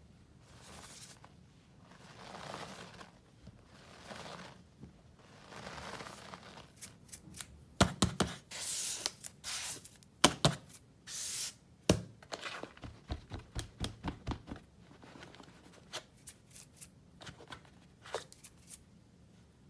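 Hands working through a tub of dry powdered cleanser: soft swishing sweeps at first, then a busy run of sharp pats and taps that thins out to a few light taps near the end.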